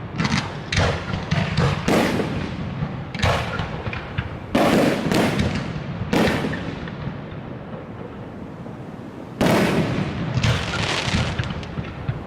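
Fireworks display: aerial shells bursting in quick clusters of sharp bangs and booms, each dying away in a rumble. It eases off for a couple of seconds before a big burst about three-quarters of the way through.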